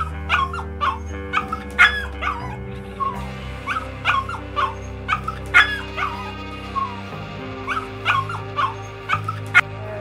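A puppy yipping and barking in a rapid string of short, high-pitched yelps, two to three a second, over soft background music.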